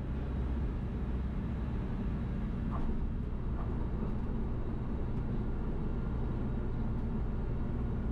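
Van's RV-12's Rotax 912 engine and propeller droning steadily, heard inside the cockpit on short final for a crosswind landing.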